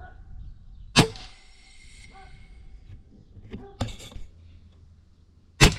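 FX air rifle firing two shots about four and a half seconds apart, each a sharp crack with a short ringing tail. Between them, a few softer mechanical clicks.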